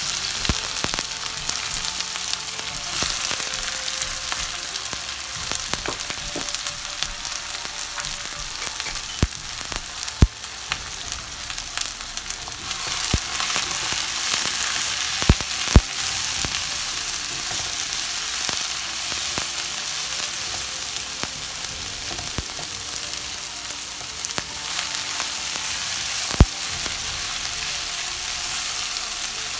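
Sliced onions frying in hot olive oil in a metal pan: a steady sizzle as they are stirred with a spatula, with a few sharp knocks of the spatula against the pan.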